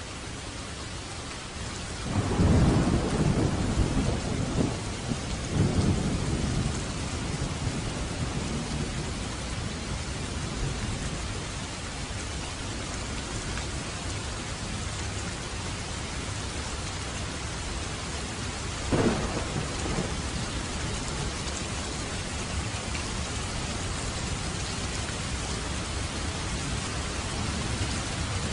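Heavy rain falling steadily. About two seconds in, thunder rumbles in several swells for about five seconds, and a short sharp crack comes about two-thirds of the way through.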